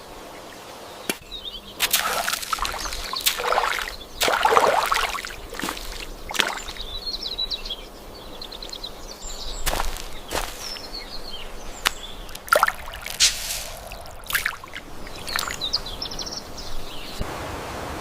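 Water splashing and being poured in irregular bursts, with birds chirping in the background. Near the end it gives way to a steady, even rush of water.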